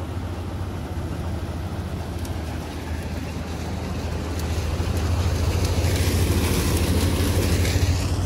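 Heavy diesel farm machinery running steadily: a low engine hum under dense mechanical noise, growing louder from about halfway through.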